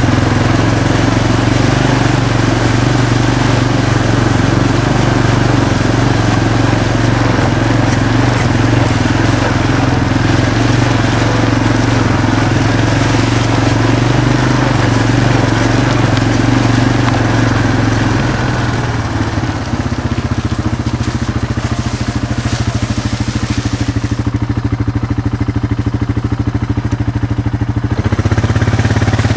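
A small off-road vehicle engine runs steadily while riding. About two-thirds of the way through it drops to a slightly quieter, evenly pulsing idle.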